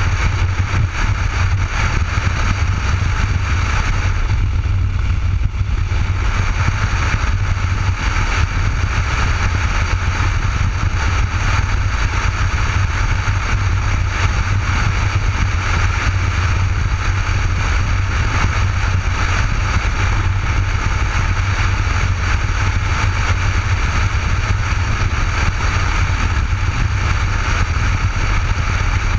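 Cruiser motorcycle riding at steady road speed, heard from a helmet-mounted action camera: a steady low rumble of wind and engine drone, with a brief slight lull about four to six seconds in.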